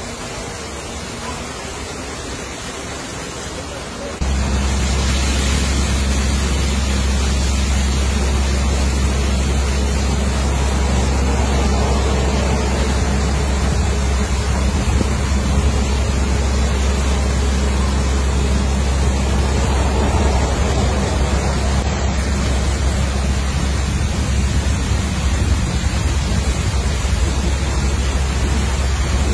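Powerful water jets of a drive-through vehicle wash spraying against a truck with a steady rushing hiss. About four seconds in, a loud steady low rumble comes in abruptly and runs on under the spray.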